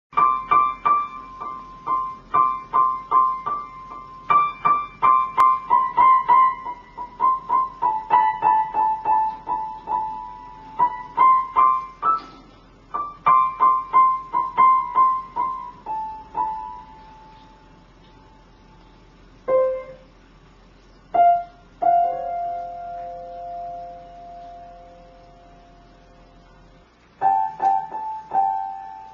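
Piano notes: quick runs of single notes in the middle-upper range for about sixteen seconds, then a few scattered notes left ringing, then more notes near the end.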